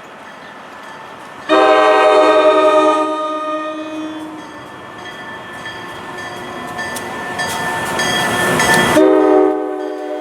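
Train horn sounding a chord of several notes, starting suddenly about a second and a half in and loudest at first, while the rumble of a passing train swells; the horn sounds again near the end.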